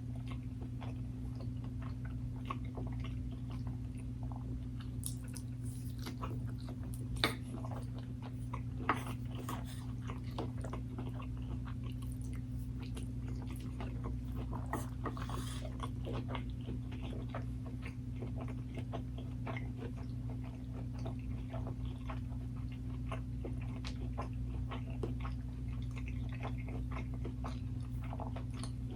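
Close-miked chewing and biting: a steady stream of small wet mouth clicks, with two sharper clicks about seven and nine seconds in, over a steady low hum.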